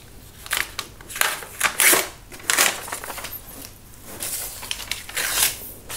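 A sheet of A4 paper being torn by hand, a series of irregular rips and crackles.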